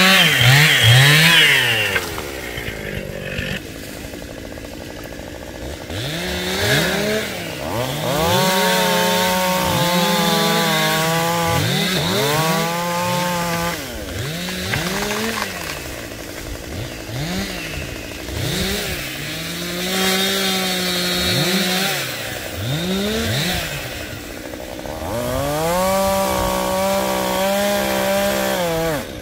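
Two-stroke chainsaw cutting wood at full throttle, loudest in the first two seconds. It is then revved up and dropped back to idle again and again, with several longer stretches held at full speed as it cuts.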